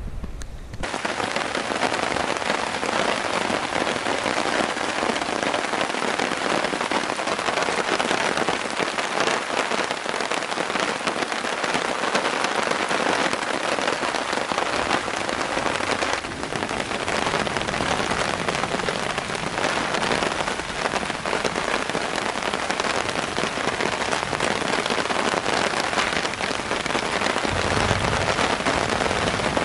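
Heavy rain pouring down steadily, a dense, even hiss of drops that sets in suddenly about a second in as the storm hits.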